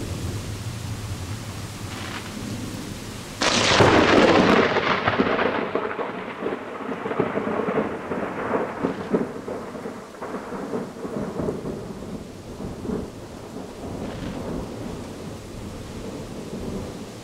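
A thunderclap breaks suddenly about three seconds in, then rolls on as a long rumble that slowly fades over the next ten seconds, over steady rain.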